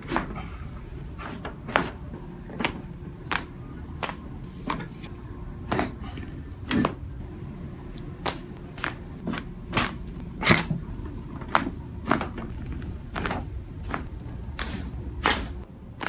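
Spinal joints cracking under chiropractic adjustments of the back and neck: about twenty sharp pops, some single and some in quick runs, over a low steady hum.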